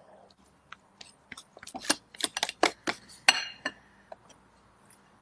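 Wire whisk tapping and clicking against a glass bowl while a third of the meringue is stirred into chocolate egg-yolk batter: a quick, uneven run of light taps, busiest in the middle.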